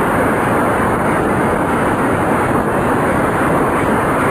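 Audience applauding, a loud dense clatter of many hands that holds steady throughout.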